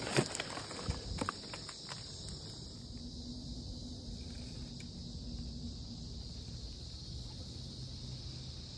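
Steady high hum of insects, with a few crunching steps on river gravel in the first two seconds.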